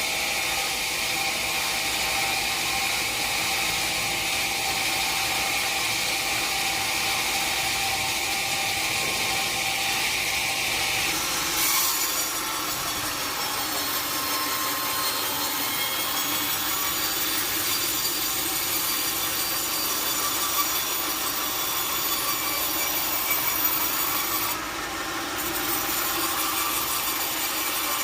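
A sawmill saw cutting lengthwise through a large log: a steady rasp of blade in wood with a thin whine over it. The sound changes character a little less than halfway through, and briefly drops a few seconds before the end.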